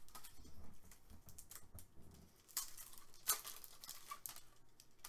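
Light handling noises and small plastic clicks as a trading card is fitted into a magnetic one-touch card holder, with a sharper click a little over three seconds in.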